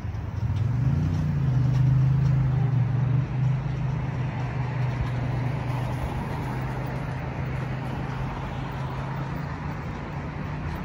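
Light road traffic: a nearby motor vehicle's engine rises in pitch about a second in and then holds a steady hum, over the tyre and road noise of cars passing.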